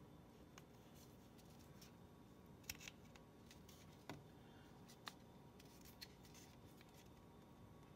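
Near silence with a handful of faint, separate clicks as a homemade wooden-stick-and-screw tool turns the plastic aerator in a Kohler kitchen faucet spray head, tightening it.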